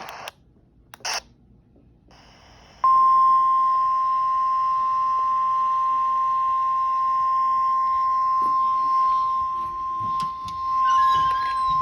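A brief click about a second in, then the NOAA Weather Radio 1050 Hz warning alarm tone starts abruptly about three seconds in and holds as one steady, loud beep for about nine seconds. The tone signals that an emergency warning message is about to be broadcast.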